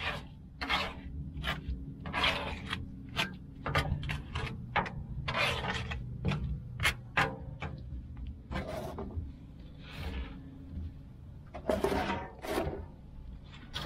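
Hand scraper dragged in irregular strokes through softened, warmed-up grease and gunk on the steel floor of a Lang 84 Deluxe offset smoker's cook chamber, scraping it toward a clogged drain.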